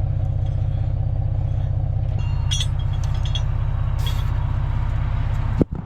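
Vehicle engine idling with a steady, even pulse, with a few light clicks and rattles in the middle; it cuts off suddenly near the end.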